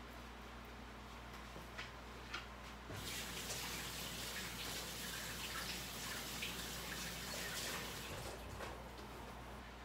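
Kitchen tap running for about five seconds, starting suddenly about three seconds in, after a couple of light clicks.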